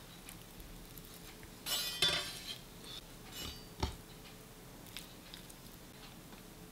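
Diced raw beef being put into a glass bowl on a wooden cutting board: a brief scraping rustle about two seconds in, then a single sharp clink of glass shortly before four seconds, with a few faint ticks after.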